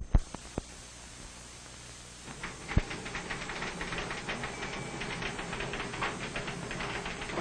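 Typewriter keys clattering in a rapid, irregular run from about two seconds in, after a few single knocks, over a steady hiss.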